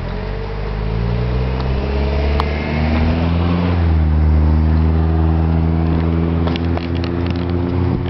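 A motor vehicle's engine running close by, getting louder over the first few seconds, its pitch dipping slightly and then holding steady.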